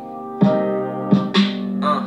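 Guitar music playing loudly through a homemade plywood speaker box with two Rockville 6.5-inch speakers. A held chord fades out, then new plucked notes start about half a second in.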